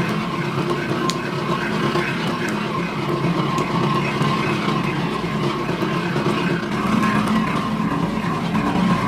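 Steady drone of running factory machinery, with a few faint clicks.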